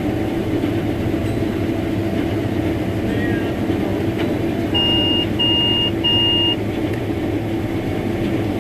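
Combine harvester running with a steady machine drone. About five seconds in come three short, evenly spaced beeps: the grain-tank-full alarm.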